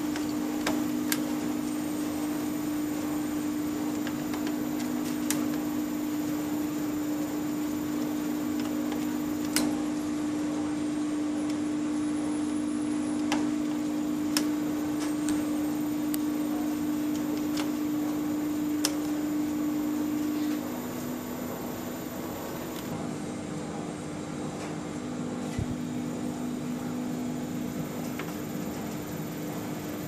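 Steady machine hum from a 75 kg industrial washing machine and its motor-drive cabinet, with a few sharp clicks scattered through. About two-thirds of the way in the hum drops in level and shifts to a lower pitch.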